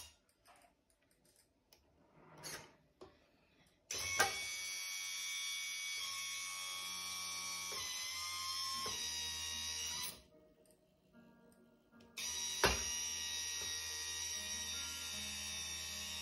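Steady electric whine of a scale model tipper truck's hydraulic pump as the dump body raises and lowers. It starts with a click about 4 seconds in, stops about 10 seconds in, and starts again with a click about 12 seconds in.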